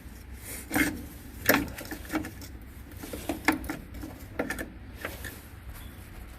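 Irregular clicks and knocks of a car's hood latch assembly being worked loose and handled as it is taken out.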